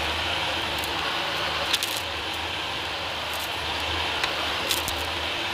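Dyson DC40 upright vacuum cleaner running steadily on a hard tile floor, with a handful of sharp crunchy clicks as bits of debris are sucked up and rattle into the machine.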